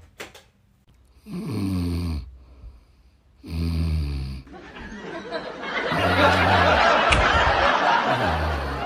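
A young woman snoring: four rasping snores about two seconds apart, each dropping in pitch. A loud hissing rush swells up under the last few seconds.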